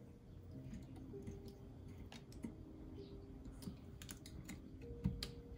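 Faint, scattered clicks and taps of small parts being handled and pressed into a scale model engine kit, with a sharper click about five seconds in.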